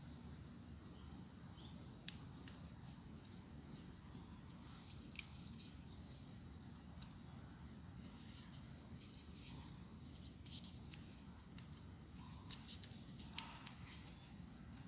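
Faint rustling and small crisp clicks of folded paper triangle units being pressed and fitted together on a 3D origami model, coming more often in the second half.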